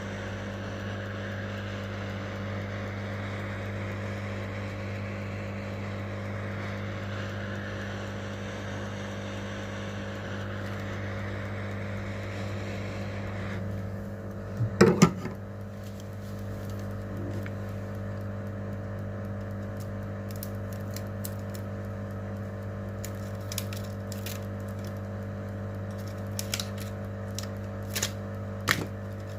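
A steady electrical hum under a hiss of blowing air that cuts off about halfway through. A short loud clatter follows, then scattered light clicks and taps of small hand tools.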